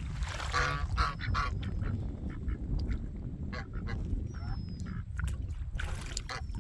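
Domestic geese and ducks calling: honks and quacks, short and scattered, with the loudest cluster about a second in.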